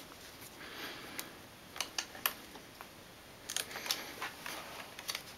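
Scattered light clicks and scrapes as fingers tug the pull ribbon to work a RAM module out of the memory slot of an early 2009 aluminum iMac. The clicks come closer together about three and a half seconds in.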